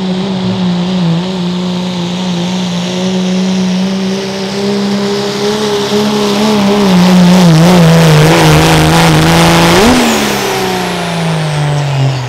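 Turbocharged diesel pulling truck's engine held at high revs under heavy load, its pitch wavering and the sound growing louder in the middle. About ten seconds in the revs flare briefly, then fall away steadily as the pull ends.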